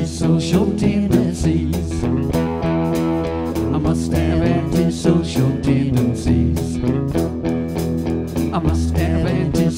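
Rock band playing live: electric guitars over a drum kit keeping a steady beat.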